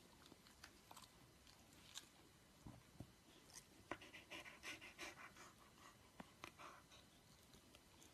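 Faint panting from a dog being scratched on the head: a run of short breaths about four to five seconds in, with soft mouth clicks around it.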